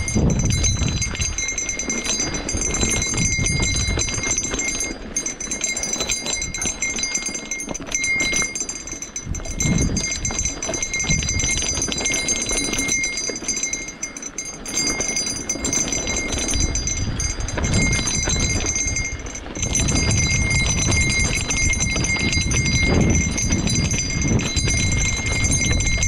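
A horse walking on a dirt trail, its hooves clopping steadily under a low, uneven rumble of noise on the microphone. A faint, steady high whine sits beneath throughout.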